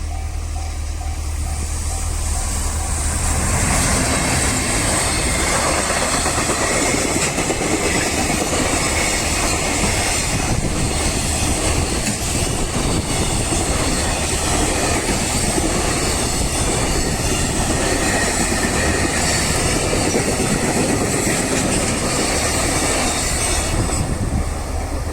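A long freight train passing at speed over a level crossing. The rumble and clatter of its wheels on the rails builds about two seconds in, runs on steadily for about twenty seconds and dies away near the end.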